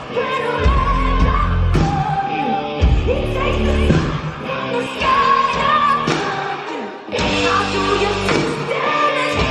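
Live rock music from a band at a concert, with a singer's voice carrying the melody over heavy bass and drums.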